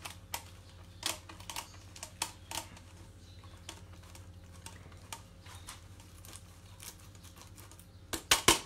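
Scattered light clicks and taps of kitchen utensils and dishes being handled as grated cheese goes over the top of the dish, with a quick run of louder clicks near the end. A low steady hum runs underneath.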